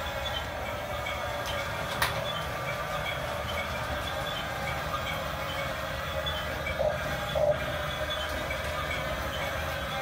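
Huina 1569 RC bulldozer running, its small electric drive motors and gears whirring steadily with a faint regular ticking as it moves on sand. A sharp click about two seconds in and two louder scrapes near seven seconds in.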